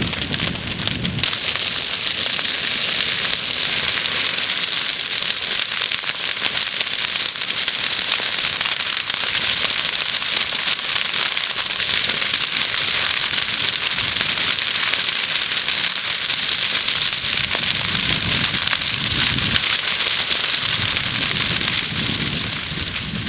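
Dry prairie grass of big bluestem and switchgrass burning in a broad flame front: a loud, steady, dense crackle and hiss of flames, with a low rumble at the start and again toward the end.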